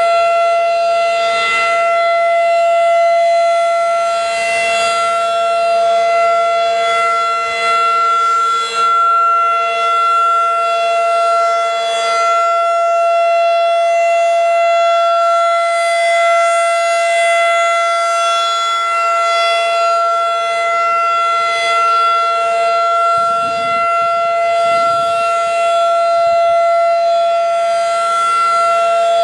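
Federal Signal 2001-DC electromechanical tornado siren sounding a steady tone at full pitch for its weekly test. The tone holds level throughout, swelling slightly every few seconds as the rotating head sweeps past.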